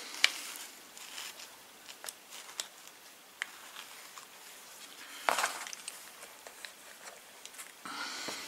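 Handling noises from working on a small electric motor and hand tools: scattered light clicks and taps, a sharper knock about five seconds in, and a short rustle near the end.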